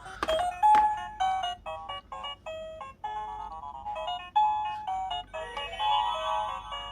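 Hello Kitty toy make-up set playing its built-in electronic melody in music mode: a tune of simple beeping tones stepping from note to note, with a click or two near the start.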